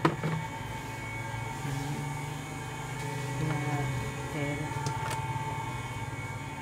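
A steady hum with faint voices in the background and a sharp click at the start.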